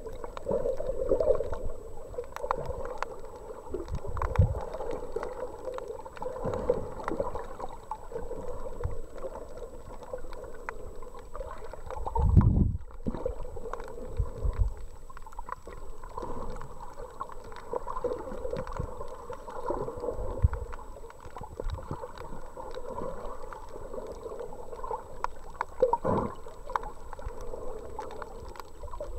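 Muffled underwater sound picked up by a submerged waterproof camera while snorkeling: water gurgling and sloshing against the camera with scattered low thumps, one stronger thump about twelve seconds in.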